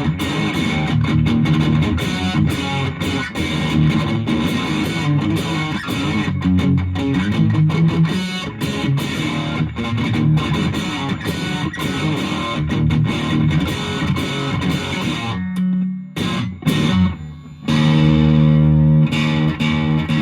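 Electric guitar, a Fender Japan Jazzmaster, played through a 1985 Japanese Boss DS-1 distortion pedal into an ELK FSB-45 amp and picked up by a phone's microphone. Busy distorted picking gives way about sixteen seconds in to a short break with a few stabs, then a held chord rings out near the end.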